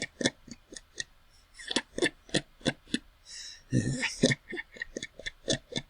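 A person laughing quietly: suppressed chuckles in quick short pulses, about four a second, broken by short pauses, with a longer breathy burst of laughter a little before four seconds in.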